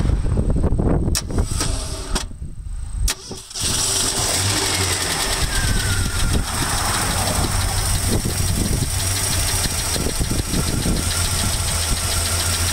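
1983 Ford Ranger's carbureted 2.0-litre four-cylinder engine, after a short lull with a couple of clicks, catches about three and a half seconds in and settles into a steady idle with a fast, light ticking. The owner says the engine runs a little rich since its carburetor rebuild.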